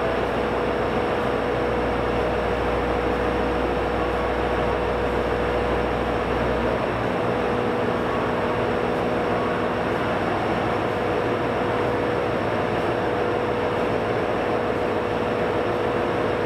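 Train at a station platform, a steady, even running noise with one constant tone and no wheel beats; a deep rumble underneath drops away about seven seconds in.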